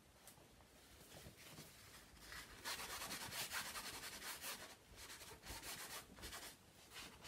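Cloth rubbing across a painted canvas, wiping the paint: quiet at first, then a quick run of scratchy rubbing strokes from about two and a half seconds in, followed by a few separate strokes.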